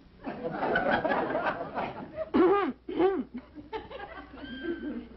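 Audience laughing for about two seconds. Two short, loud pitched sounds follow, each rising then falling.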